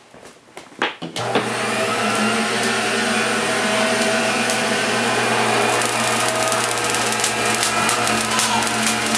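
Van de Graaff generator switched on about a second in, its electric drive motor and belt running with a steady hum and whir as it charges up. Scattered sharp clicks sound over it in the second half.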